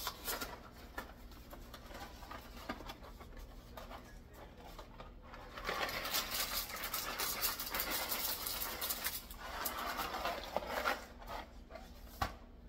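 Dry bow-tie pasta poured from its cardboard box into a skillet of broth and milk, a rattling patter in two spells starting about six seconds in. Before that, light crinkling and clicks as the box is opened.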